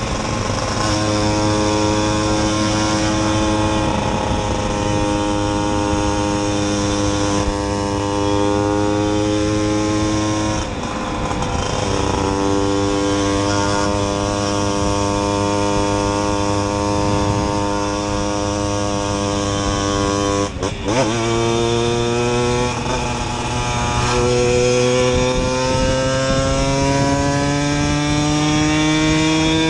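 Simson moped's single-cylinder two-stroke engine, fitted with a 60 cc kit and a Jack Motors exhaust, running steadily. The note breaks and changes pitch about three times, then rises slowly near the end.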